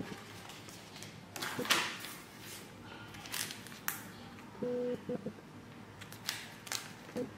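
Paper pages and a clear plastic sleeve rustling and crinkling as a photobook is handled and a card in its sleeve is picked up, in irregular short bursts. A few short, steady low tones sound about two-thirds of the way in and again near the end.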